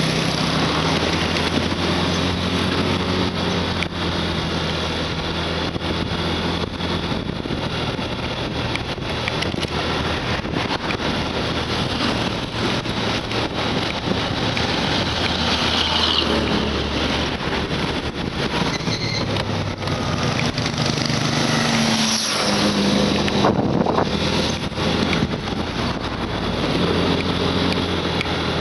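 Yamaha motorcycle engine running steadily while riding, under a constant rush of wind and road noise. The engine note shifts briefly about three-quarters of the way through.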